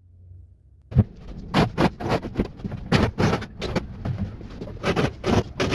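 A run of irregular sharp clicks and knocks, several a second, over a low rumble, starting about a second in.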